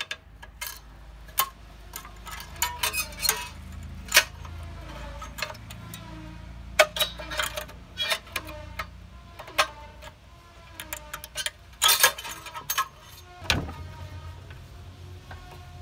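Irregular small metal clicks and clinks, some ringing briefly, as the governor linkage, springs and rods are worked off a rusty Honda GX160 engine.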